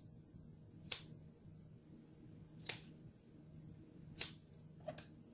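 Scissors snipping into the curved seam allowance of a sewn cotton mask: four short, sharp snips spaced one to two seconds apart, the last one lighter. The curve is being clipped so the seam lies flat when the mask is turned right side out.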